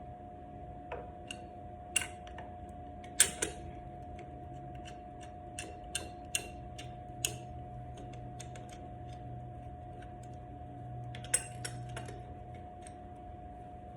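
Irregular sharp metallic clicks and clinks of hand tools being handled while working on a motorcycle, the loudest about three seconds in and a quick cluster near the end, over a steady faint hum.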